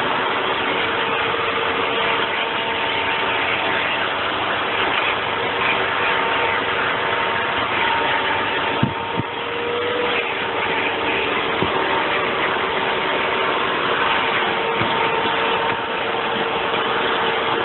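Vacuum cleaner motor running steadily while its hose nozzle is drawn over a dog's fur, with a steady hum and a couple of soft knocks about nine seconds in.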